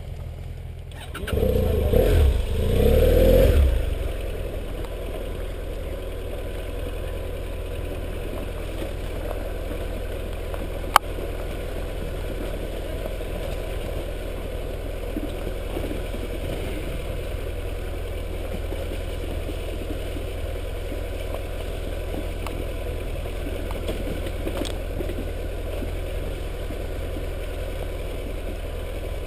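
BMW GS parallel-twin motorcycle engine revving as the bike pulls away, a couple of seconds in, then running steadily at low speed along a rough dirt trail. There is one sharp click about eleven seconds in.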